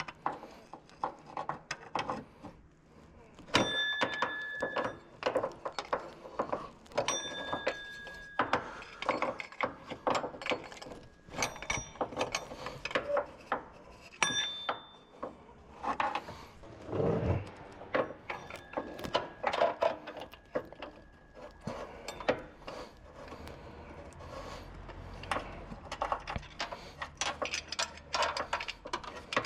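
Mechanic's hand tools being handled and worked on a car: a long run of irregular clicks, knocks and metal clinks, with a ringing metallic tone a few times in the first half.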